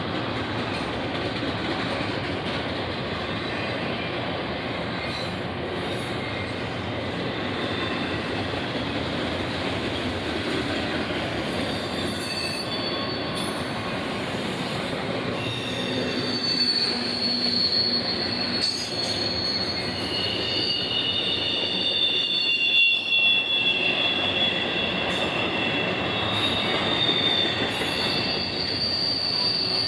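Union Pacific intermodal freight train rolling past, a steady rumble of wheels on rail, with high-pitched wheel squeal joining from about halfway in.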